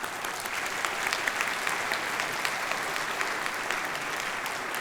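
Audience applauding steadily in a large hall, many hands clapping at once.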